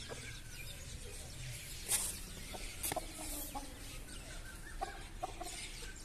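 Rooster clucking: a few short, low clucks through the second half, with a sharp click about two seconds in and another about a second later.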